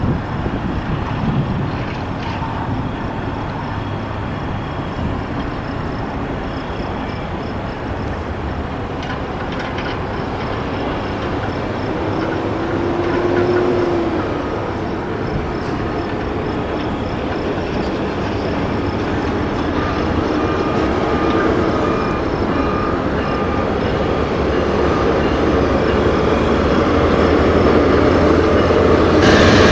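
A train rolling past on the tracks, a steady rumble that grows gradually louder toward the end.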